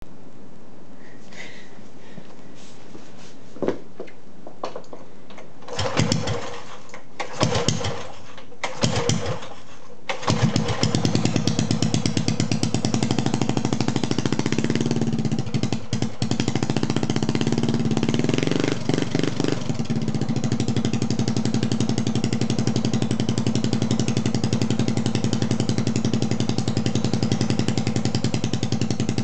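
Briggs & Stratton 5 hp single-cylinder four-stroke engine cold-started with its recoil pull cord: three short pulls that don't catch, then it fires about ten seconds in and runs on steadily. It is revved up and back down a couple of times before settling into a steady run.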